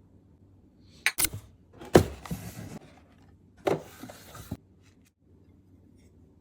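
Coffee cups and their packaging being handled during an unboxing. Sharp knocks come with scraping and rustling after them, in three bursts about one, two and three and a half seconds in; the one at two seconds is the loudest.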